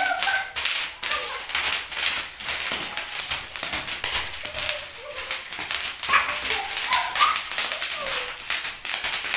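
Bubble wrap popping in a rapid, irregular crackle of small pops as it is crawled and pressed on by hand, with a few short high-pitched yelps at the start and about two thirds of the way through.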